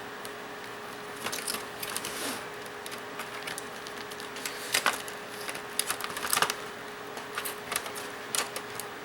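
Irregular plastic clicks, snaps and rattles as an HP laptop's case parts are handled and pulled apart. A few sharper snaps come around the middle, over a faint steady hum.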